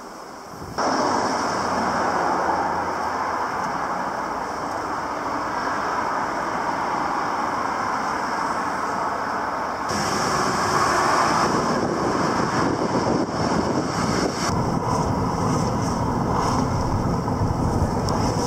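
City street traffic noise: a steady rush of cars driving past on a wide road. The sound changes abruptly about a second in and again about ten seconds in.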